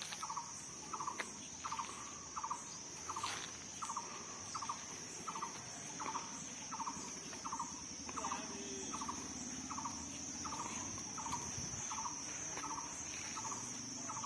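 Crickets trilling steadily at a high pitch, with a second animal repeating a short pulsed call about three times every two seconds.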